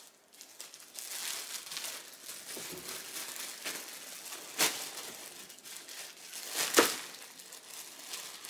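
Packaging crinkling and rustling as items are unwrapped and handled, with two sharp snaps, one about halfway through and a louder one a couple of seconds later.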